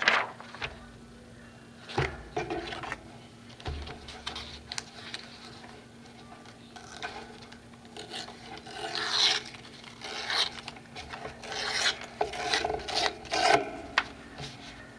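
Paper rustling and rubbing as hands handle cut paper pieces and press them flat onto a collage board, in irregular scuffs with a few sharp taps, busier in the second half.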